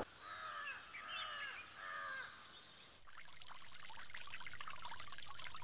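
A bird calls three times. About three seconds in, a small irrigation sprinkler takes over, spraying water in a steady hiss and patter of falling drops.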